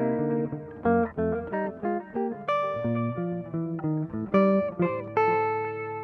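Jazz guitar playing a run of cluster chord voicings. A new chord is plucked every third to half second, its notes ringing together.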